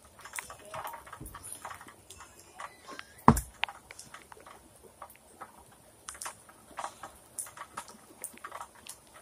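Scattered small ticks of rain dripping around a weight bench, with one sharp clank of the loaded barbell against the metal rack about three seconds in.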